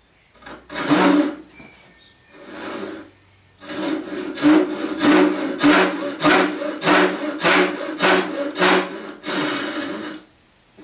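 Hishiki Japanese rip saw cutting dovetail pins in an oak board. A few slow starting strokes are followed by a steady run of quick strokes, about two a second, which stop near the end.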